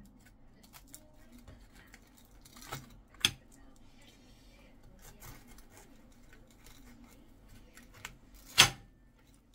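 Metal fork cutting into a baked pie's pastry crust on a ceramic plate: faint crackling of the crust with a few sharp clinks of fork on plate, the loudest near the end.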